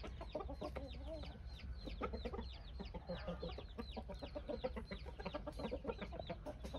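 Young gamecock roosters clucking in their pens, with a rapid run of short, high, falling chirps going on throughout.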